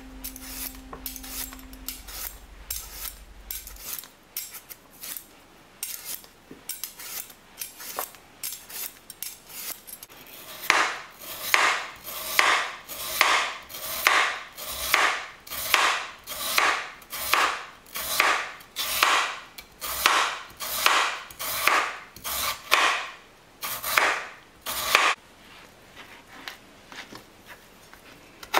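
Hand food preparation with a kitchen utensil: rhythmic rasping strokes. They are light and scattered at first, then grow strong and regular, about one and a half a second, and stop a few seconds before the end.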